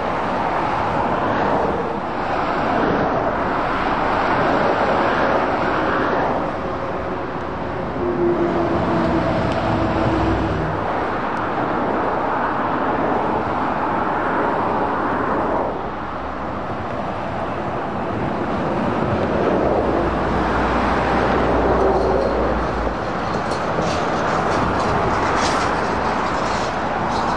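Dense motorway traffic noise, swelling and fading every few seconds as vehicles pass, with a deep lorry rumble twice. A few faint ticks or knocks come near the end.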